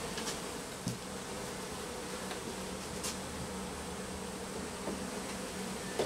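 Honey bees buzzing in a steady, continuous hum around an exposed brood comb, with a few faint clicks.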